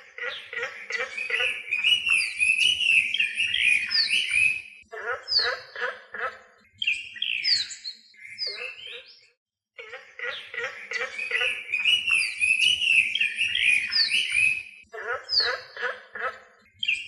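Recorded birdsong from several birds chirping and trilling, with quick falling whistles. After a brief pause about ten seconds in, the same passage starts over as a loop.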